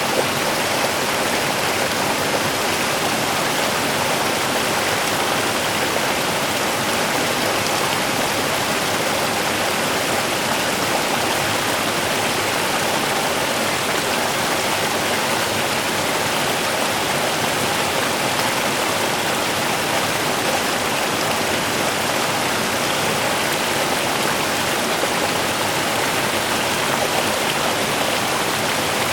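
Small river's water running steadily over stones, a constant rushing without breaks.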